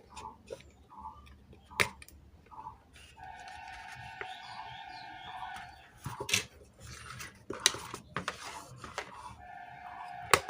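Sharp clicks and scrapes of small metal tools handling an IC as it is taken off an amplifier circuit board. A steady pitched whine joins for about three seconds in the middle and returns near the end.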